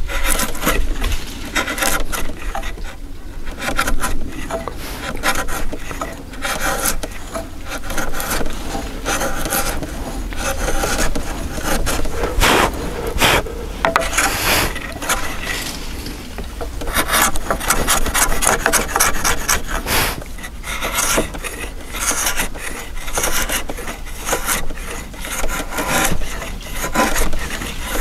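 A wide Korean timber-framing chisel pushed by hand, paring thin shavings off the face of a timber beam. The steel scrapes and crackles through the wood fibres, stroke after stroke, about one every two seconds.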